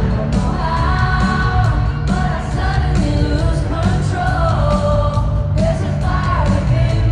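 Pop music with a singing voice over a heavy, steady bass. It sounds like a live arena concert recorded from the crowd.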